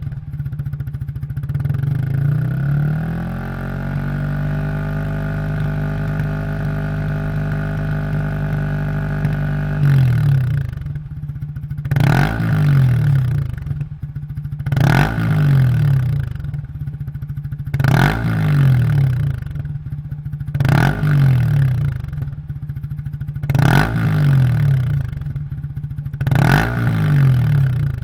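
Yamaha YZF-R15's 155 cc single-cylinder engine through a Yoshimura Heptaforce full-system exhaust, revved up and held at high revs for several seconds. It then drops back and gets a series of short throttle blips, about one every three seconds, each falling back to idle.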